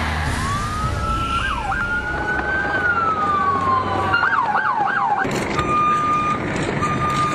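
Emergency vehicle siren: a slow wail rising and falling, switching to a fast yelp about four seconds in, then two long steady beeps.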